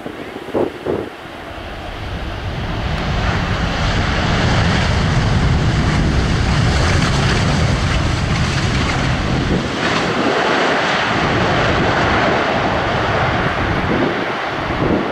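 Boeing 747 freighter's jet engines running loud during its landing roll, the noise swelling over the first few seconds and then holding steady with a deep rumble. Wind buffets the microphone.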